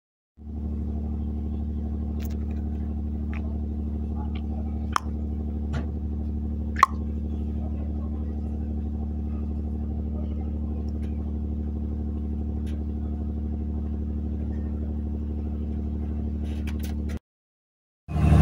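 A ship's engine running steadily, with a few sharp clicks and knocks, the loudest about seven seconds in. It cuts off abruptly shortly before the end.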